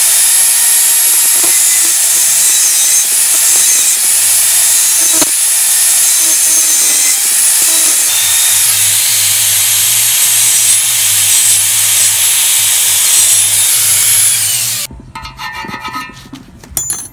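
Angle grinder with a thin cut-off disc cutting through a steel bolt: a loud, steady high whine that stops abruptly about fifteen seconds in. Then a short run of quick metal-on-metal scraping strokes over the cut bolt.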